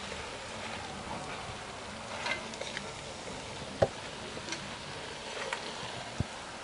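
A metal spoon stirring chopped spinach in a stainless steel pot, with a few sharp clicks as it knocks against the pot, over a low steady hiss of the greens cooking.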